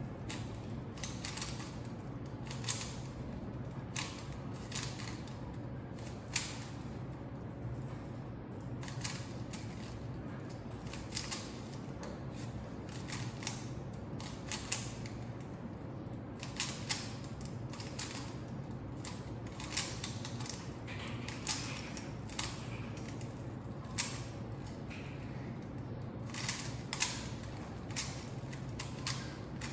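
Rubik's cube being solved by hand: its plastic layers turning with quick, irregular clicks, over a steady low hum.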